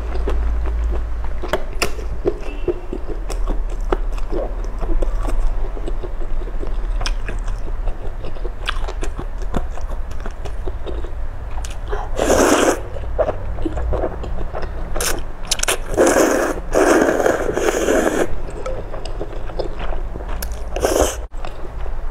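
Close-miked eating of a bowl of noodle soup: steady chewing with small wet clicks, and loud noodle slurps a little past halfway, again a few seconds later, and once more near the end. A low steady hum runs underneath.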